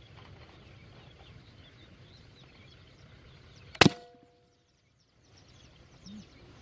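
A single sharp shot from a PCP airgun almost four seconds in, with a brief metallic ring after the crack.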